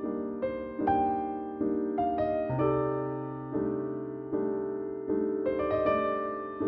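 Background piano music: slow, soft single notes and chords, each struck and then fading, a new one every half-second to a second.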